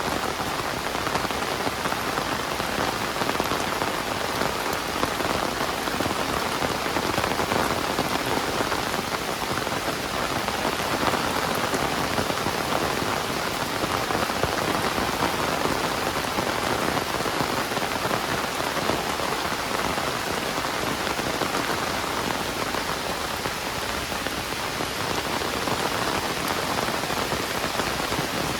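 Heavy rain falling steadily, a dense even hiss of drops pattering on surfaces all around.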